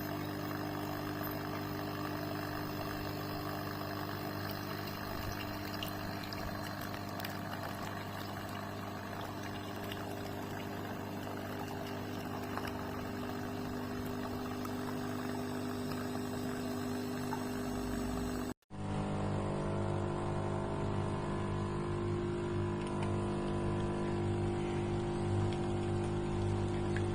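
Capsule espresso machine brewing: its pump hums steadily while coffee pours into the cup. The sound cuts out for a moment about two-thirds of the way through, then carries on with a slightly pulsing hum.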